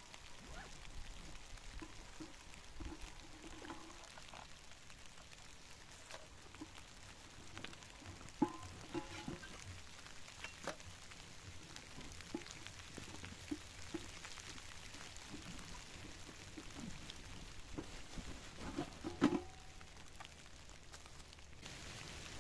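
Rustling, clicks and small knocks of camping gear being taken out of a canvas backpack and set down on dry fallen leaves, with two louder rustles about eight and nineteen seconds in.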